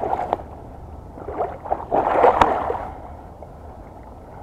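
Shallow water splashing and sloshing in short bursts, loudest about two seconds in, with one sharp knock, as a hooked fish is worked in to the angler's feet.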